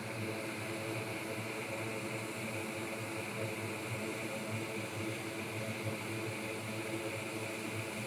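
Steady whir of fans, with a low hum under it, from a bench air filter and fume extractor running.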